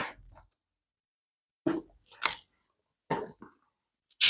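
Pages of a book being turned by hand: a few short, crisp paper rustles about half a second apart.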